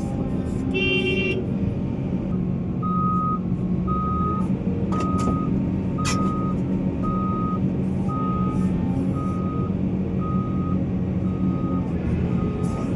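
Heavy diesel earthmoving machine running, with its reversing alarm beeping about once a second from about three seconds in. A short pitched tone sounds briefly about a second in.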